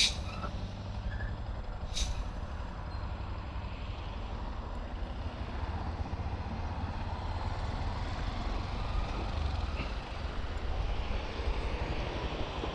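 Engines idling at a stop in traffic: a steady low rumble, with two sharp clicks in the first two seconds.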